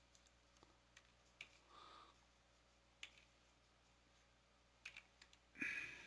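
A few faint, separate keystroke clicks on a computer keyboard, typing a number into a spreadsheet-like table, over near silence. Near the end comes a brief, somewhat louder sound.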